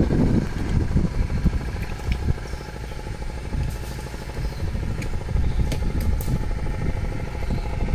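Motorboat engine running steadily, a continuous low rumble, with a few faint clicks over it.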